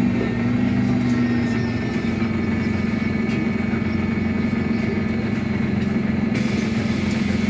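Iveco Urbanway 18 CNG articulated bus idling at a standstill, heard from inside the bus as a steady, even engine hum.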